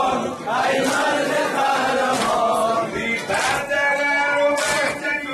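Men's voices chanting a Shia noha, a Muharram lament, sung as a group.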